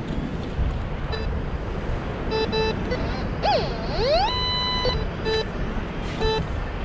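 White's MX7 metal detector giving short beeps as its coil is swept over a freshly dug hole in wet beach sand, sounding off on the coin still in the ground. Around the middle comes a longer tone that dips, rises and holds steady for under a second. Surf and wind hiss runs underneath.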